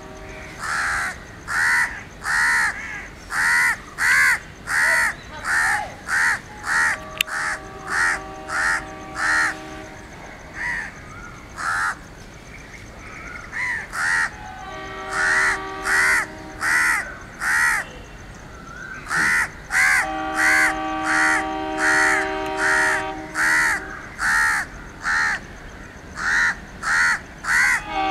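Crows cawing over and over, short repeated calls. An approaching locomotive's air horn sounds three long steady multi-note blasts under them: a quarter of the way in, about halfway, and about three-quarters through.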